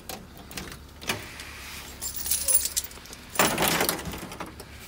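School bus ignition keys jangling and clicking as the key is handled and turned to the on position ahead of a cold start. The loudest jingle comes about three and a half seconds in, over a steady low hum.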